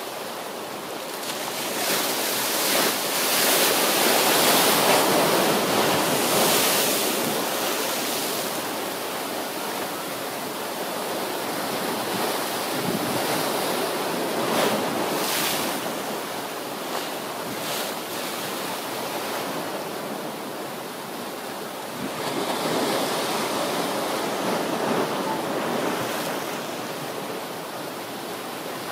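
Heavy surf stirred up by an approaching typhoon, rushing and breaking in swells that rise and ease, with strong wind gusting against the microphone.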